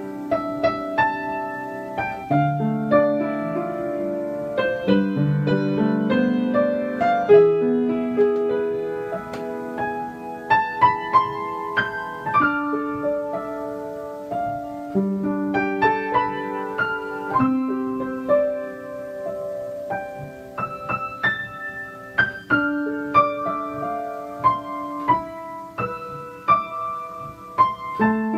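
Background piano music: a slow piece of single struck notes and chords, each ringing on and fading.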